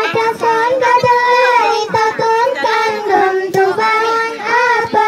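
Young girls' voices chanting an Arabic vocabulary verse with Javanese glosses to a sung melody, with long held and gliding notes, amplified through microphones.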